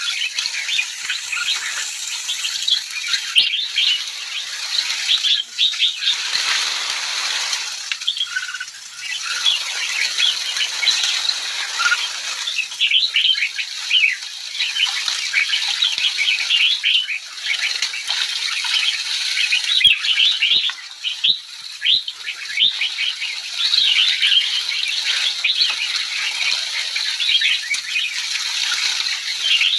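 A large flock of sooty-headed bulbuls calling all at once, many short overlapping chirps. A brief rushing whoosh comes about six seconds in.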